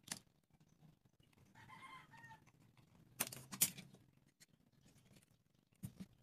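Small sharp clicks and taps of a craft knife and a plastic protractor handled on a wooden board: one near the start, two close together about three seconds in, and one near the end. A short pitched animal call in two parts sounds faintly in the background about a second and a half in.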